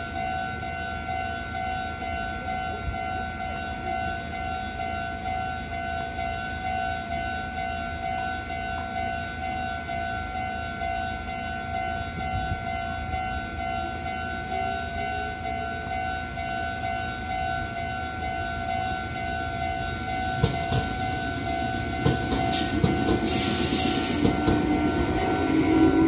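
Japanese level-crossing warning alarm ringing steadily in a regular repeating tone. From about twenty seconds in, a Meitetsu train approaches and passes, its running noise building, with brief high wheel squeals near the end.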